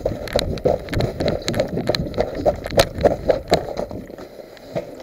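Running footsteps crunching on packed snow and ice, about three steps a second, growing quieter about four seconds in as the runner slows.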